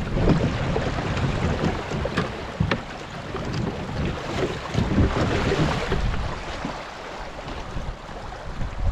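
Water rushing around a kayak moving through fast, shallow water, with gusts of wind buffeting the microphone and a few sharp knocks.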